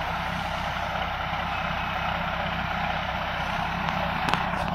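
Heavy diesel engine running steadily with a low, even hum.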